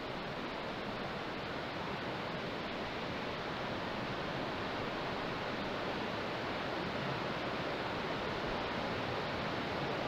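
Steady rushing of the Yadkin River's flowing water, an even, unbroken hiss.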